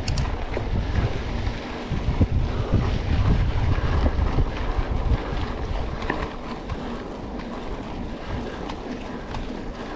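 Wind buffeting the microphone of a camera riding on a moving mountain bike, with a heavy low rumble that is loudest in the first half and eases after about six seconds, and scattered clicks and knocks from the bike over the trail.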